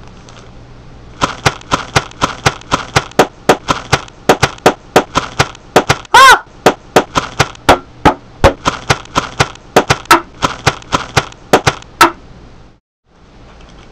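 A rapid series of sharp clicks or snaps, several a second, with one louder squeaky sound bending in pitch about halfway through; the clicking stops abruptly near the end.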